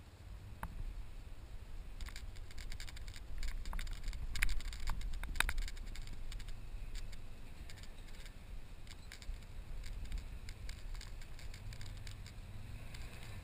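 Low steady rumble of an ATV engine running, heard muffled, with a cluster of clicks and rattles between about two and seven seconds in.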